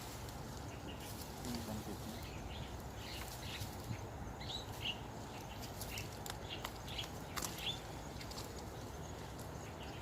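Short, high bird chirps scattered over a steady low outdoor background noise.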